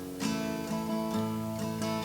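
Acoustic guitar playing on its own between vocal lines, a new chord or note struck about every half second.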